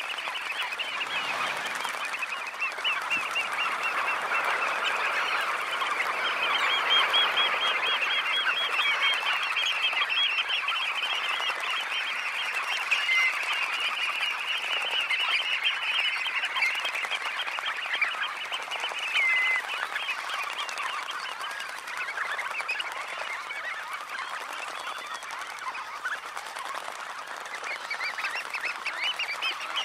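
A large flock of red knots calling together at close range: a dense, continuous chatter of many short, overlapping calls, thinning a little near the end.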